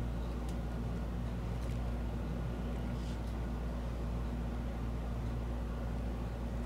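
A steady low hum throughout, with a few faint, brief snaps of threading thread plucking eyebrow hairs in the first half.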